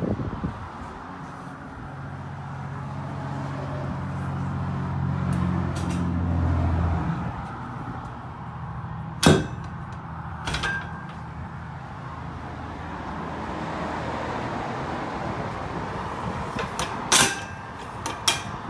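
Sharp metal clanks from an aluminium horse-trailer stall divider and its pin latch being worked by hand: one about nine seconds in, another a second later, and two more near the end. A low engine hum runs underneath through the first half.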